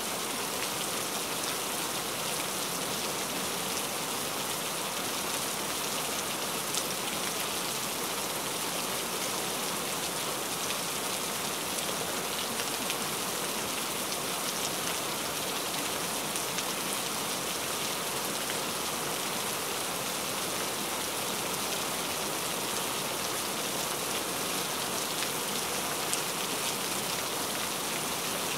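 Steady rain falling, an even hiss with faint scattered drop ticks throughout.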